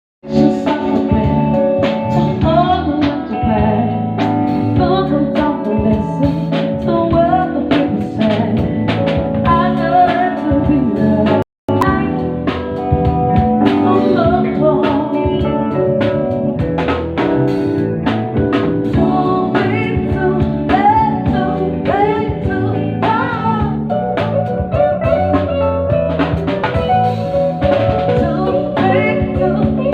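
A band playing a song at a sound check, a singer's voice over drums and other instruments. The sound cuts out completely for a split second a little over a third of the way through.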